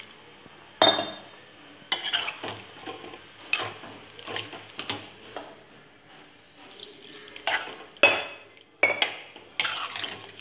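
Steel spoon stirring a watery curry in a metal pan, clinking irregularly against the pan's sides, about a dozen sharp metallic knocks with a soft sloshing of the gravy between them.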